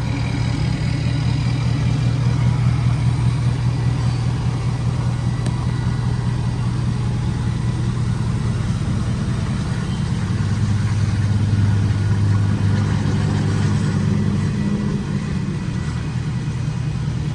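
Ford F250 pickup's engine running steadily at low revs, dipping slightly in pitch for a few seconds about ten seconds in.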